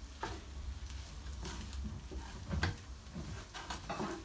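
Wooden spatula stirring scrambled eggs in a frying pan: a handful of separate scrapes and taps against the pan over a faint frying sizzle.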